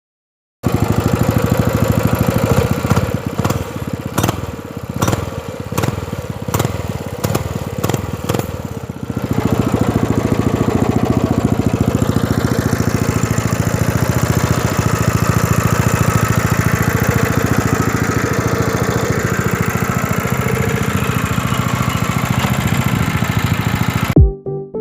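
Small diesel engine on a cub-style mini bike running. It is uneven at first, with repeated dips and surges, then runs steady and loud from about nine seconds in. It cuts off abruptly near the end.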